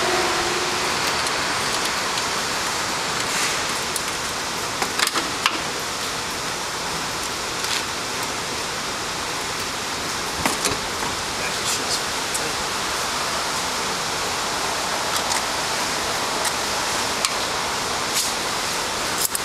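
Steady hiss of falling rain, with scattered light clicks and taps of hand tools as a car's air intake is unbolted.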